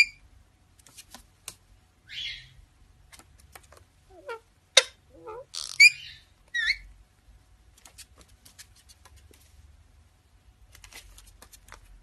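Indian ringneck parakeets making short, squeaky chirps and gliding whistle-like calls, with bursts of rapid clicking and one sharp click near the middle. A cluster of louder calls comes about halfway through.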